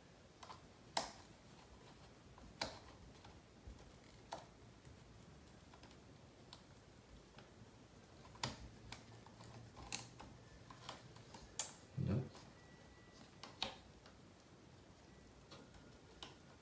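Faint, scattered small clicks and taps of a hex driver and tiny screws being handled against an RC buggy chassis while a screw is set into the servo mount, with one duller knock about twelve seconds in.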